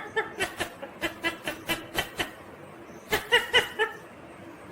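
Ringneck parakeet making a quick run of sharp clicks, about four a second, then a short burst of pitched, chuckling chatter about three seconds in.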